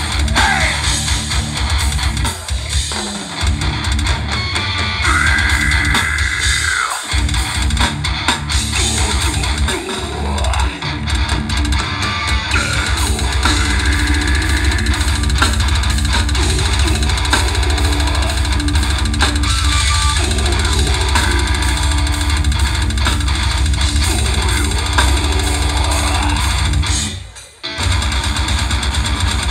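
Live metal band playing loud through a PA: distorted electric guitars and bass over a drum kit, with vocals. The music cuts out for a moment near the end and then comes back in.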